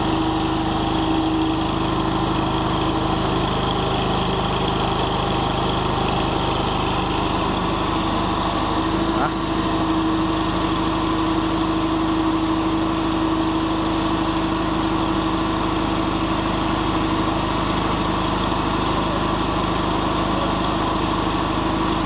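Mini skid steer loader's engine running steadily while its hydraulics raise the loader arms to full height and tip the bucket, the note shifting slightly about nine seconds in.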